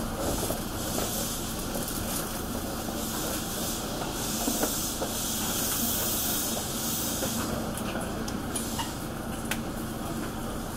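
Toei 5300 series electric train standing at a platform: a steady hiss from its equipment, joined about four seconds in by a steady low hum, with a few faint clicks.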